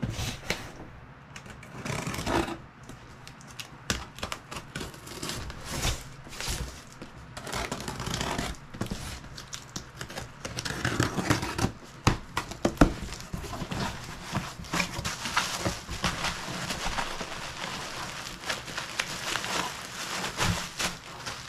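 Packaging being handled and unwrapped: bubble wrap crinkling and rustling, with irregular scrapes, clicks and knocks, and one sharp knock a little over halfway.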